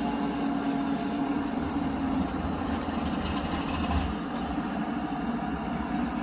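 Freight train passing: the drone of a mid-train CSX diesel locomotive fades after about two seconds, leaving the steady rumble of hopper cars rolling by.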